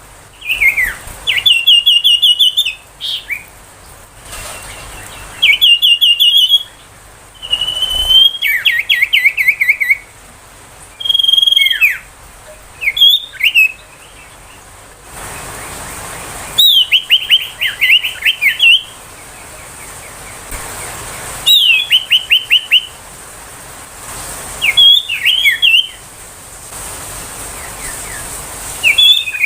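Common iora singing: short phrases of rapid, chattering trills and falling whistled notes, repeated every few seconds with short pauses between.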